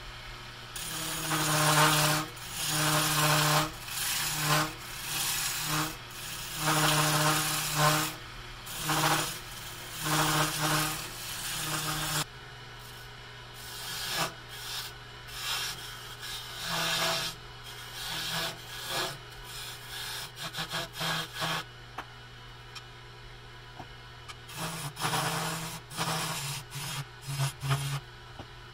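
Jet wood lathe running with a steady hum while a turning tool cuts the spinning wood spindle, in repeated scraping passes of about a second each. About twelve seconds in it turns quieter, with shorter, lighter cuts.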